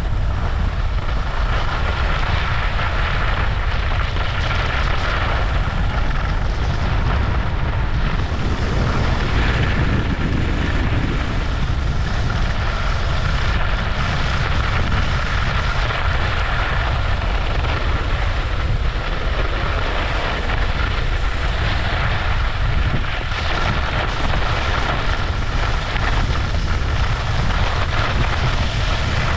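Wind buffeting the microphone and skis hissing and scraping over a groomed snow piste during a continuous downhill run, steady throughout.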